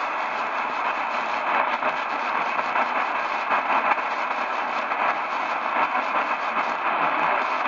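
Steady hiss and static from a Tecsun PL-330 portable radio tuned to 850 kHz on the AM (medium wave) band, with no station coming through clearly.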